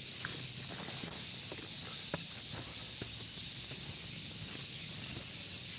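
Steady high-pitched hiss of outdoor field ambience, with scattered light clicks and rustles and one sharper click about two seconds in.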